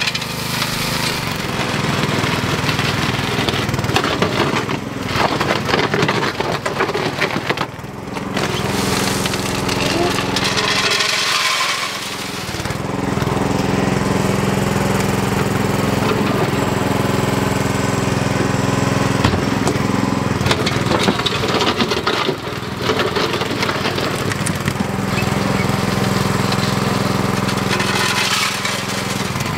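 Tracked mini dumper's small engine running steadily under work, with irregular knocks over it; the engine drops back briefly about a third of the way through, then picks up again.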